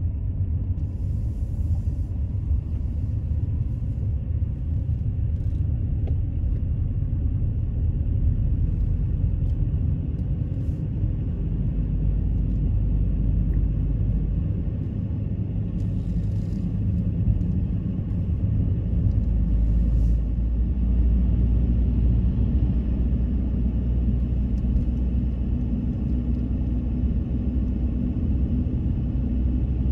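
Car driving, heard from inside the cabin: a steady low engine and road rumble that grows heavier about two-thirds of the way through.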